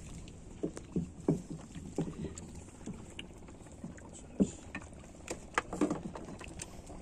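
A fishing net being hauled by hand over the gunwale of a wooden boat: irregular light knocks and rustles as net and rope drag against the wood, the sharpest knock about four seconds in, over a steady low rumble.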